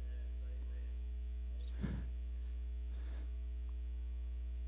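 Steady electrical mains hum with its evenly spaced overtones, running at an even level. Two faint, brief sounds come about two seconds and three seconds in.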